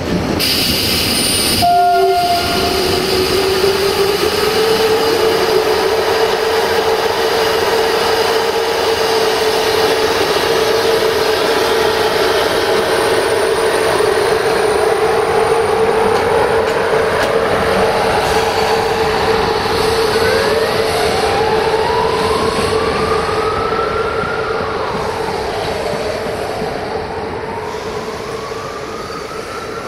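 A train moving at a railway station, with a steady droning tone throughout. There is a short loud noise about a second in, and from about two-thirds of the way through a whine sweeps up and down in pitch several times.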